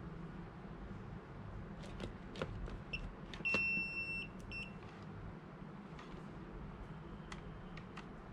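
Multimeter continuity beeps as the test probes touch wire ends: a short chirp about three seconds in, a steady high beep of under a second, then two more quick chirps, with light clicks from the probes and wires. The beep signals a closed circuit through the part being tested.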